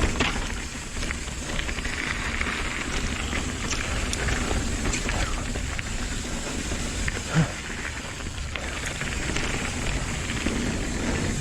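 Downhill mountain bike riding fast down a dirt trail: steady wind rush and tyre rumble, with scattered rattling clicks over the bumps and one louder knock about seven seconds in.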